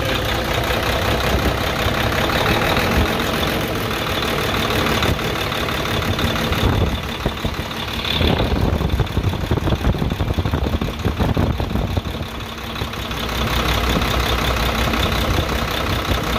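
Hino H07D inline-six diesel truck engine idling steadily, just restarted after a cracked cylinder liner was replaced.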